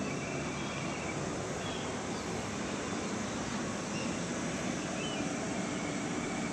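Steady outdoor background noise, with a few faint high-pitched chirps now and then.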